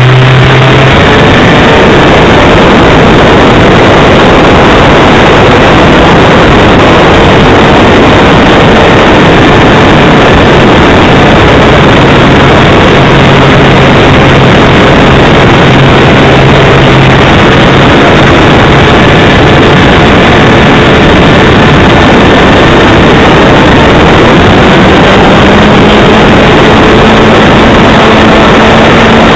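RC model airplane's small piston engine running hard, heard very loud from a camera mounted right beside it, together with a rush of air. Its pitch shifts a little as the plane manoeuvres and steps up near the end.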